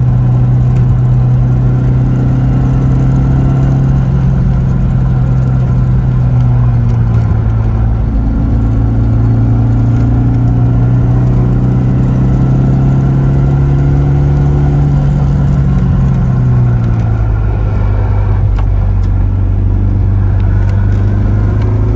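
BMW E36 cruising on the road, its engine running with a steady note that dips about a third of the way in and settles lower near the end.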